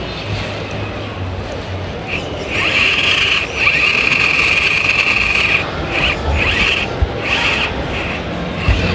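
High-pitched electric whine from a scale RC crawler's motor drive, starting about two seconds in and held for about three seconds, then coming in several short bursts. A steady background din runs underneath.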